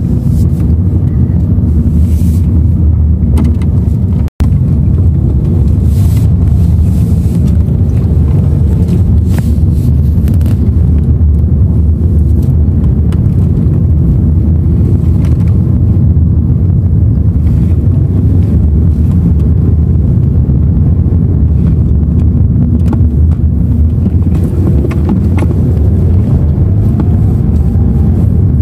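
Car driving, heard from inside the cabin: a steady low rumble of engine and road noise. The sound cuts out for an instant about four seconds in.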